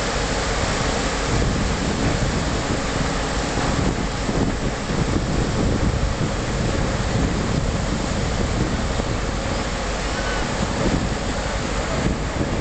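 Wind buffeting the microphone: a loud, steady rush with uneven low rumbling gusts.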